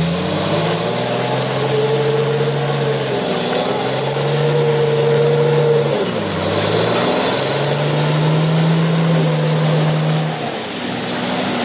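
Off-road 4x4's engine revved hard in three long pushes, with short drops between, as the vehicle struggles stuck in deep snow with its wheels spinning.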